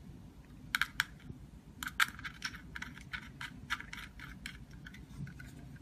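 Irregular light metallic clicks and taps of small metal parts being handled as the screw tubes are fixed onto a keypad door lock's front panel.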